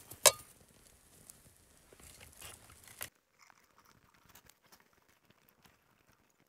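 A sharp click near the start, then faint scattered crackling and rustling as a small flame on a split-wood featherstick is tended by hand.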